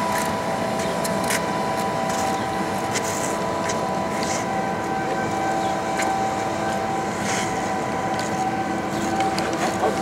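Air blower feeding a small blast furnace, running with a steady whine of several fixed tones over a constant rush of air.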